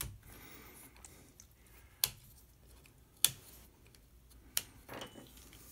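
Plastic drag chain cover links being pried open with a small screwdriver: four sharp clicks spaced about one to one and a half seconds apart, with a few fainter ticks between them.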